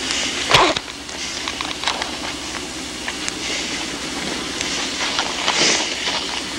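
Hissing, crackly outdoor ambience from an old field recording, with scattered faint clicks and one sharp knock about half a second in.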